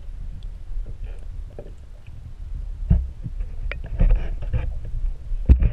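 Muffled underwater rumble heard through a submerged camera, with scattered knocks and taps against it; the loudest knocks come about three, four and five and a half seconds in.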